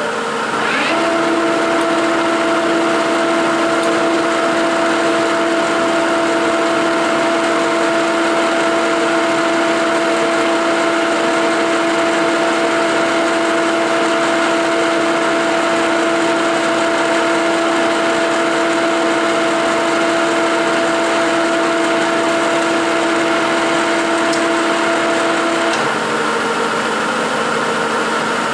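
A 1956 Herbert No. 4 capstan lathe running with its spindle turning, a loud steady machine hum with a steady whine over it. The whine drops away near the end while the machine keeps running.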